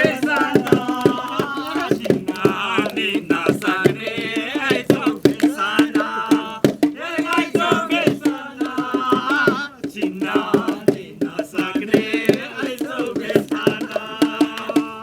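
Voices singing a folk song over a steady percussion beat of short, evenly spaced strokes.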